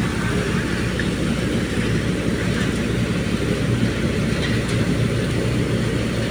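Tractor-driven threshing machine running steadily while mustard plants are fed through it: a low engine hum under the drum's even rushing noise.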